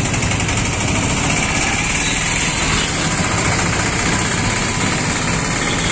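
Motorcycle engine idling steadily in slow, congested traffic, with the engines of the surrounding cars and auto-rickshaws running close by.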